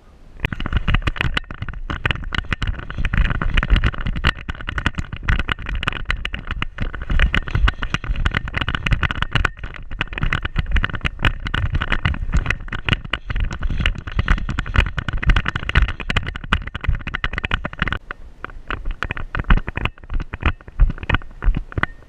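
Irregular knocking and rustling of a harness-mounted action camera jostled on the back of a Scottish deerhound as the dog moves from the lake onto grass and runs, with its shaggy fur brushing against the microphone. The rustle thins somewhat about eighteen seconds in while the knocks continue.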